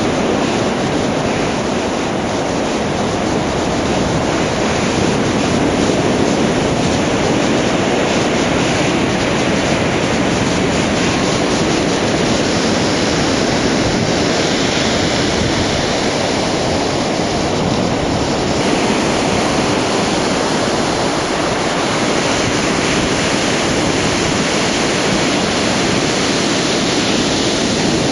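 Ocean surf breaking on a beach and over jetty rocks: a steady, continuous rush of water with no separate crashes standing out.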